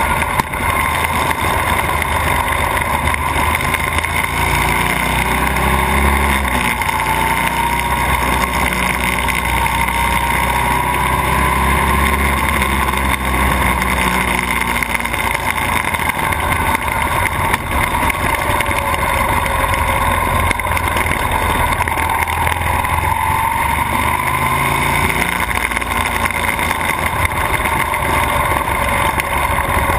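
Buell XB12S's 1203 cc air-cooled V-twin running under way, with wind and road noise. The engine pitch rises and falls slowly as the bike speeds up and eases off through the bends.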